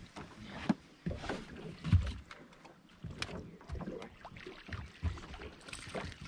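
Irregular knocks and thumps of people moving about in a small fishing boat, feet and gear bumping on the deck and hull, the loudest about two seconds in.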